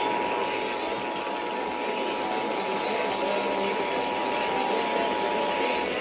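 Emergency Alert System two-tone attention signal, a steady dual tone heard through a small AM radio's speaker over a bed of AM static hiss. The tone cuts off suddenly near the end, leaving only the hiss.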